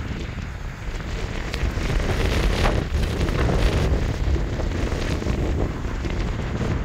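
Wind buffeting the microphone: a rough, rumbling rush that grows louder about two seconds in.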